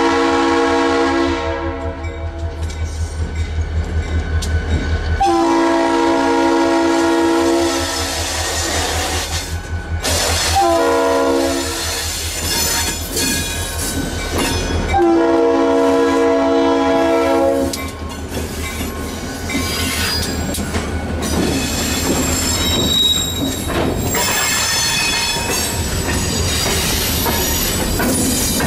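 Diesel locomotive's air horn sounding four blasts, long, long, short, long, the standard grade-crossing signal, over the engine's low rumble as it approaches and passes. After that, covered hopper cars roll by with clattering wheels and thin, high squeals from the wheels on the rails.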